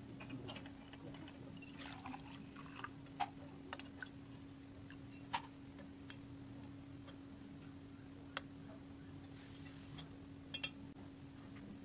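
Scattered light clicks and taps as a pencil and a glass test tube knock against each other and against the rim of a water-filled glass beaker, a handful of separate ticks over several seconds. A faint steady low hum runs underneath.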